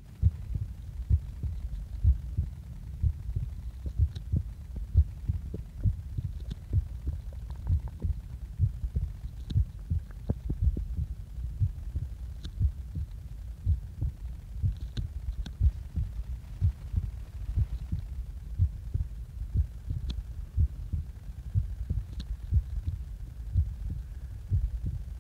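A person's heart beating, picked up close on the chest as a steady run of low, muffled thumps, recorded just after waking.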